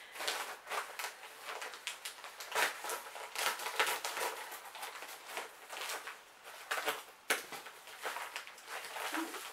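Black plastic bubble mailer being torn open and handled, a quick irregular run of rips and plastic rustling.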